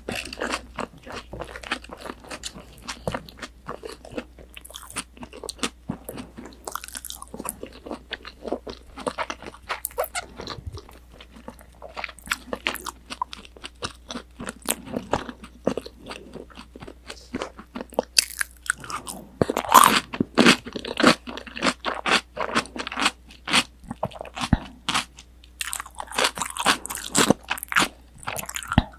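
Close-miked crunching and chewing of deep-fried breaded pork cutlet (tonkatsu), the crisp crust crackling with each bite. The crunching grows louder in the last third.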